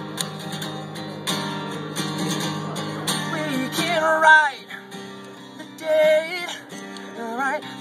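Acoustic guitar strummed, with a man singing held, wavering notes about four seconds in and again near six seconds.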